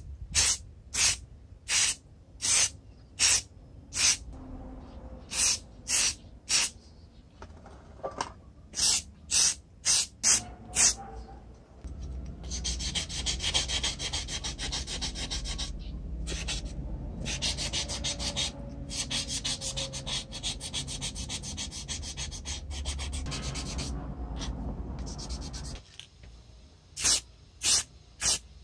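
Aerosol spray-paint can fired in short hisses, about two a second, for roughly the first ten seconds and again near the end. In between, about fifteen seconds of steady scratchy rubbing as a small metal part is rubbed down by hand, with a few brief pauses.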